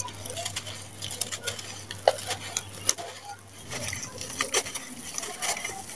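Dry sand-and-cement mix crumbling through hands and falling in a gritty hiss with many small clicks of grains and pebbles landing. After about four seconds it falls onto wet cement paste.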